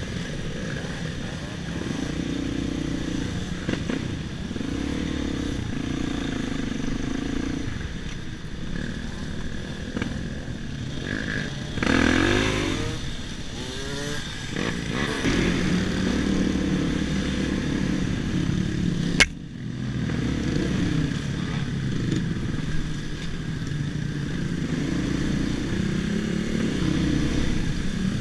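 Dirt bikes riding in a group: the nearest motorcycle engine rising and falling in pitch as the throttle is worked, with other bikes' engines around it. A single sharp click about nineteen seconds in.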